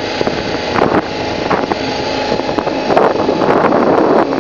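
BMW G650GS single-cylinder motorcycle engine running while riding, mixed with steady wind rush on the microphone that swells briefly a few times.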